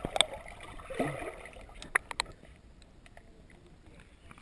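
Pool water splashing and sloshing around a GoPro's waterproof case at the surface, with sharp ticks and splashes in the first couple of seconds, then quieter lapping.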